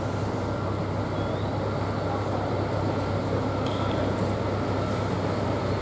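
Scania truck's diesel engine running steadily at low speed as it pulls a loaded fairground-ride trailer slowly along the street, a continuous low drone.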